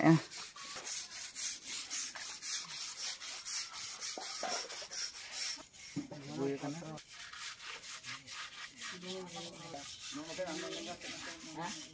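A paintbrush scrubbing paint onto a rough plastered wall in quick, even strokes, about four a second. Faint voices are heard twice.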